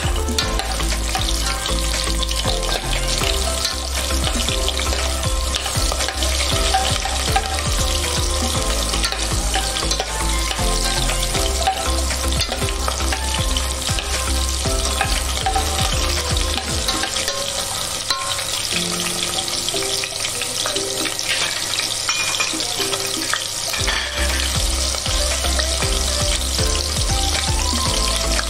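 Small whole shallots sizzling as they fry in hot oil in a stainless steel pot, stirred with a metal spoon, over background music with a bass line that drops out for a few seconds in the middle.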